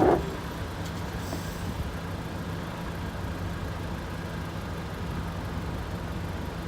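Motor vehicle engine running steadily: an even low rumble with a faint hum.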